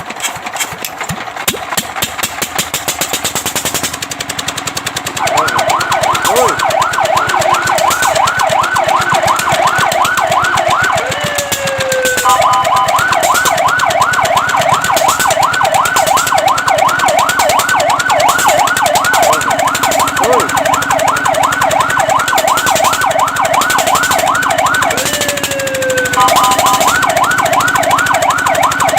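Fire truck siren sounding a rapid yelp, its pitch sweeping up and down several times a second. Twice a falling glide marks a change in the pattern, after which steady tones sound along with the yelp. Before the siren starts, about five seconds in, there is a fast, even pulsing.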